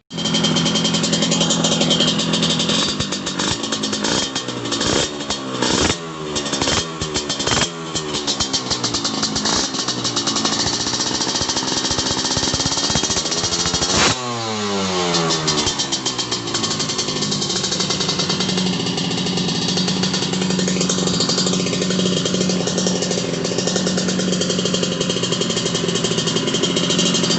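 Go-kart engine being tuned after sitting unused for a long time: it is revved up and down in a series of blips, climbs to one high rev about halfway through and falls back, then settles into a steady idle.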